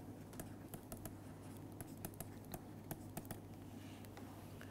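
Faint taps and scratches of a stylus writing on a pen tablet: a string of small, irregular clicks that thin out after about three seconds, over a low steady hum.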